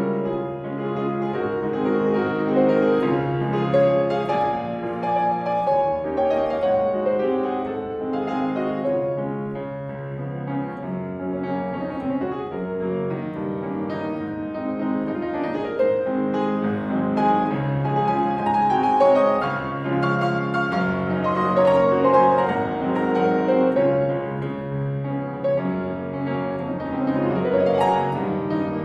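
Solo grand piano playing a classical piece with dense runs of notes, rising and falling in loudness.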